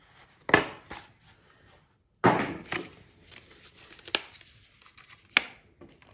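Parts and packaging of a pocket hole jig kit being handled: about six sharp knocks and clatters as pieces are picked up and set down, with light rustling in between.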